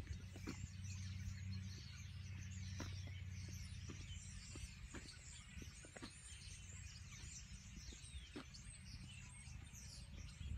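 Many small birds chirping and twittering in the trees, their calls overlapping throughout, over a low steady rumble.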